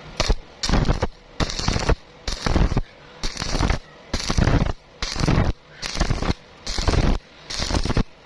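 Electric arc welding on thin iron: the arc crackles in about eleven short bursts, struck and broken roughly once every 0.7 seconds. This is welding in short stitches to build up thin metal that too much amperage has burned through.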